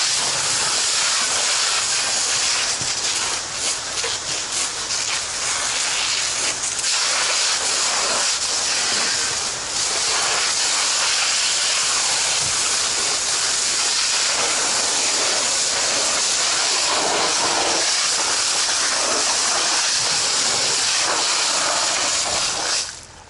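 Firefighting hose nozzle spraying a straight water stream into burning debris, a loud steady hiss of the jet and of water flashing to steam on the hot embers. The stream cuts off sharply near the end.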